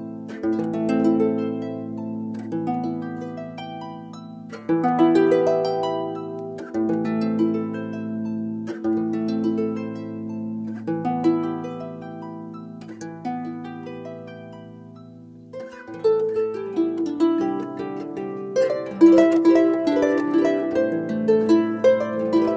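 Background music of plucked harp-like strings over held low chords, the chords changing about every two seconds; it grows fuller and louder past the middle.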